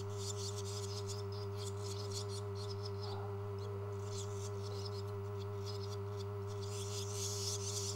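Barn swallow nestlings begging to be fed: rapid, scratchy high-pitched chirps in quick succession, swelling near the end. A steady low electrical hum runs underneath.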